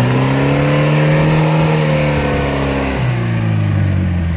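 Off-road 4x4's engine revving hard in very slippery mud, held at high revs for about three seconds, then dropping back to a lower, steady speed.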